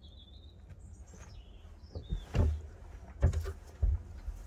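A small bird chirping in short, wavering high phrases, followed by three dull thumps.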